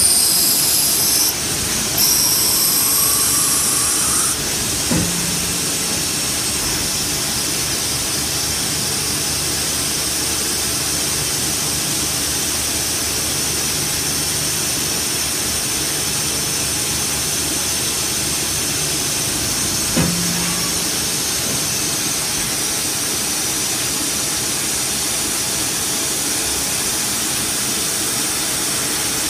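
CNC lathe machining a Delrin AF plastic bushing: a steady hiss of the spinning spindle and coolant spray, with a high cutting whine in two stretches in the first four seconds as the drill bores into the plastic. Two sharp clunks, about 5 and 20 seconds in, as the tool turret indexes to the next tool.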